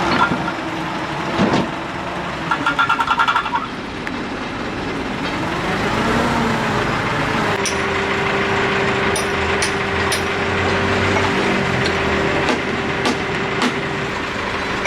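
A heavy machine's engine running steadily, with a short pulsing tone about three seconds in and a few sharp metallic knocks in the second half.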